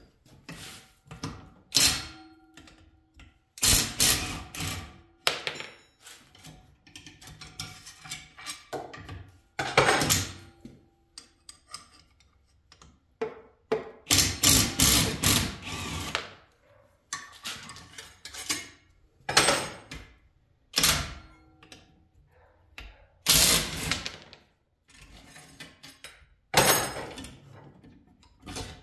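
Cordless impact driver run in about ten short bursts of a second or two, unscrewing the long through-bolts that hold an electric motor's end bells on. Short metal clicks from the wrench and bolts come between the bursts.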